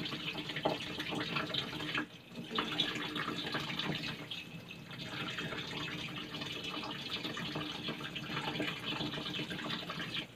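Tap water running into a stainless steel kitchen sink, briefly dropping away about two seconds in, with a few snips of kitchen shears cutting through seafood shell.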